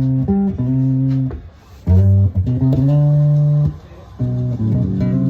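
Fender JMJ Road Worn Mustang short-scale electric bass played solo in short phrases of plucked, sustained notes, with brief pauses about a second and a half in and again near four seconds in.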